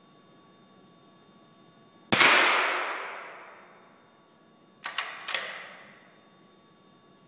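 A single shot from a .22 small-bore target rifle, ringing on in the range hall for about two seconds. About three seconds later come three quick, sharp clicks.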